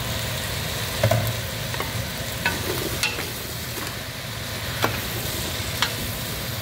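Diced pumpkin and carrots frying in butter in a pot with a steady sizzle, as a wooden spoon stirs them, knocking against the pot now and then.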